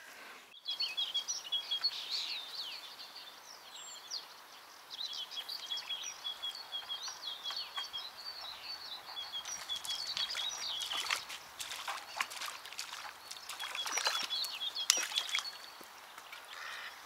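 Small songbirds singing: runs of short, high chirping notes repeating, with a few brief rustles mixed in.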